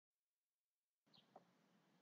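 Near silence: faint room tone, with two faint clicks about a second in.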